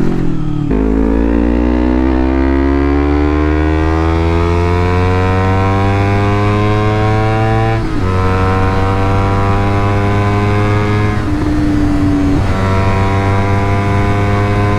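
Honda CBR250RR engine through a Leovince GP Corsa full-system exhaust, revved at part throttle. The revs drop briefly, then climb steadily for about seven seconds, dip for a moment and hold at a fairly steady pitch.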